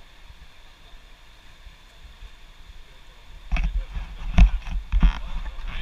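Faint steady rush of river water, then a cluster of loud knocks and thumps from about three and a half seconds in, the loudest a little after four seconds.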